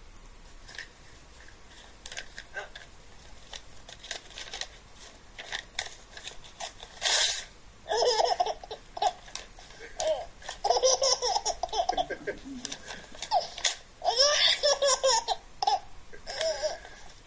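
Recorded baby belly-laughing, played back through a speaker, in repeated fits set off by paper being torn. The first part holds only short sharp tearing noises; the laughing bursts in from about halfway and comes in several fits.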